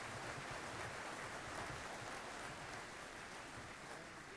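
Audience applauding steadily, easing off slightly towards the end.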